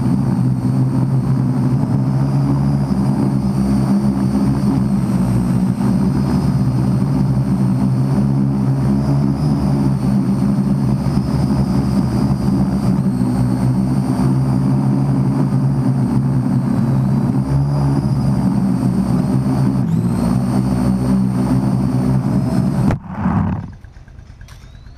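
Parrot AR.Drone 2.0 quadcopter's four electric motors and propellers running steadily, with a thin high whine over the drone of the blades, heard up close from the camera mounted on the drone. About 23 seconds in, the motors cut out as it lands, and a brief falling whine follows as the propellers spin down.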